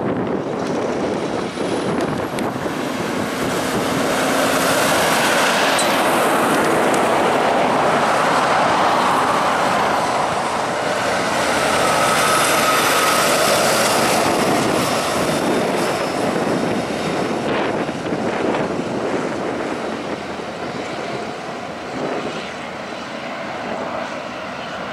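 Two heavy-haulage prime movers pulling oversize low-loaders pass one after the other, a Mack Titan and then a Kenworth K200, with diesel engines and tyres running. The noise swells to a peak about five to nine seconds in, swells again about twelve to fourteen seconds in, then fades as the trucks pull away.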